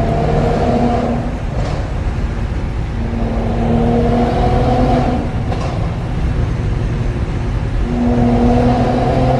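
2019 Mercedes-AMG C43's twin-turbo V6 through its AMG performance exhaust, revved and held three times. A sharp pop from the exhaust follows the first two revs as the throttle closes.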